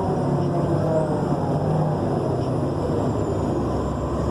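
Nova Bus LFS Artic articulated city bus under way, heard from inside: a steady, loud drivetrain rumble with pitched whine tones that drift in pitch. A faint thin high whine comes in about three seconds in.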